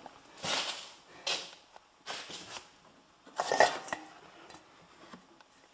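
Metal clattering and scraping: hand tools and a metal can being handled in four short separate bouts, with small clicks in between.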